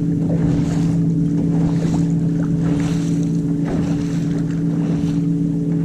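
Wind buffeting the chest-mounted microphone and water rushing along a small sailboat's hull, over a steady low hum.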